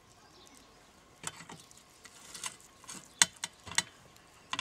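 Hands working in a plastic bag of sliced marinade onion and over a wire grill basket of pork ribs: rustling with a few sharp clicks, the loudest about three seconds in.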